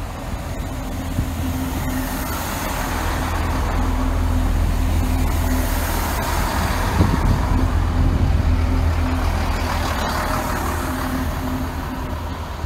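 Class 166 Networker Turbo diesel multiple unit running past close by, a steady low engine hum that swells as the carriages go by and eases off toward the end, with a few sharp clicks along the way.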